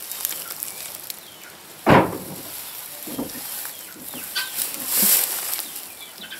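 Straw bedding rustling as a hand handles a dead hen, with one sharp thump about two seconds in; chickens cluck faintly in the background.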